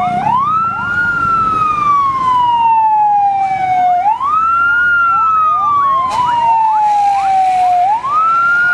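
Fire engine siren wailing: the pitch climbs quickly, then sinks slowly, about once every four seconds, with fainter, quicker sweeping tones layered over it.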